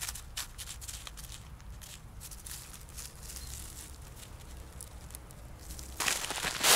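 Cat's paws and nose crunching softly and unevenly in snow over a faint low rumble. About six seconds in, much louder crunching of snow starts up close.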